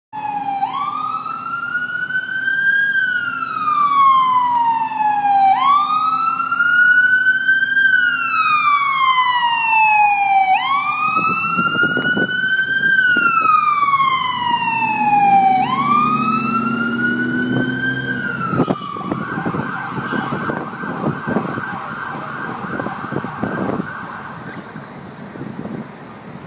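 Ambulance siren sounding a slow rising-and-falling wail, four cycles of about five seconds each, then switching to a rapid warble for about five seconds before it stops. The low rumble of the passing vehicle joins in about halfway through.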